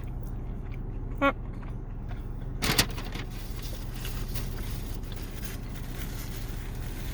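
Steady low hum of a car heard from inside the cabin. A short vocal sound comes about a second in, and a sharp noise is heard near three seconds, followed by faint rustling.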